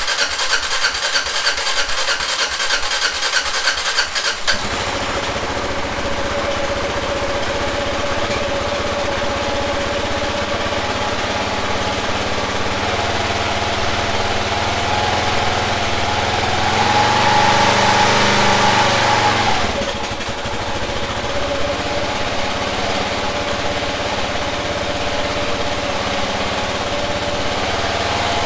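Kawasaki KLR650's single-cylinder four-stroke engine cranking on the electric starter for about four and a half seconds, then catching and idling, after a carburetor rebuild left its float bowl empty to be refilled. About thirteen seconds in the engine speed rises, goes higher still near seventeen seconds, and drops back to idle about twenty seconds in.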